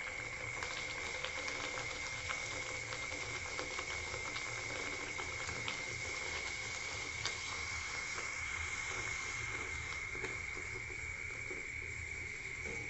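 Luchi deep-frying in hot oil in a kadai: steady sizzling with scattered little crackles and pops. A steady high-pitched whine runs under it.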